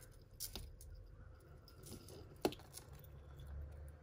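Faint, scattered small clicks and clinks of costume jewellery pieces being handled while a snagged piece is worked loose, with one sharper click about two and a half seconds in.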